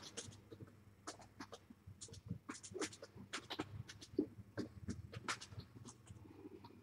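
Faint, irregular clicks, taps and scuffles from kittens playing and moving about on furniture, a few per second.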